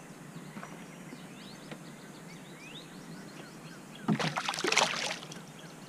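Smallmouth bass splashing at the water's surface beside the canoe: a loud burst of splashing about a second long, some four seconds in, over faint high rising chirps.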